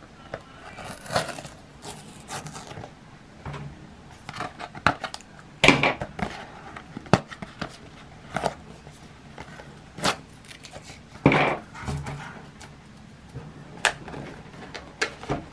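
Fingers picking at and prying open the sealed flap of a paperboard box: scattered scratching, short tearing and sharp snaps of cardboard, the loudest snaps a little before halfway and again about two-thirds through.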